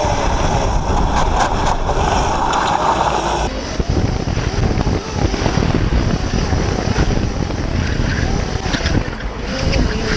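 Electric drift kart driving, recorded from its onboard camera: wind buffeting the microphone and tyre noise, with a faint whine from the electric motor that wavers in pitch. The sound changes abruptly about three and a half seconds in as it cuts to a second kart's onboard recording.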